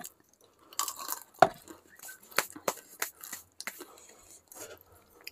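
Close-up eating noises during a spicy samosa eating challenge: scattered short clicks and crackles of food being bitten, chewed and handled.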